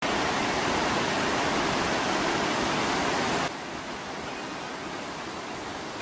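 Steady rushing of a shallow stream running over stones. It is louder for the first three and a half seconds, then drops suddenly to a softer rush.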